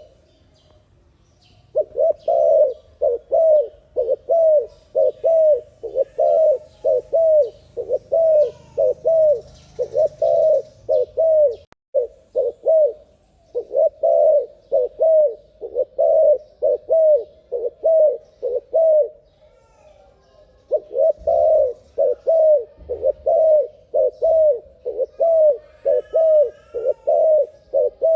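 Dove (terkukur) cooing in a fast, rapid run of short, evenly spaced coo notes, about three a second, broken by brief pauses near the start, about 12 seconds in and around 20 seconds in. Faint higher chirps of other birds come in near the end.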